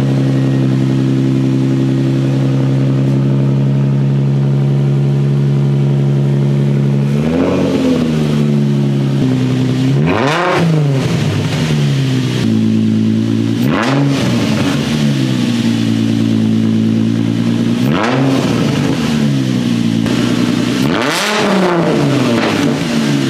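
Exhaust of a 2004 Nissan 350Z's VQ35DE 3.5-litre V6 through a 2.5-inch straight pipe from the Y-pipe back, with no mufflers or resonators. It idles steadily for about seven seconds, then is revved in about five short throttle blips, the pitch rising and falling back to idle each time.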